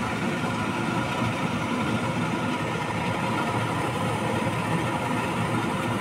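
Kitchen range hood exhaust fan running with a steady droning hum.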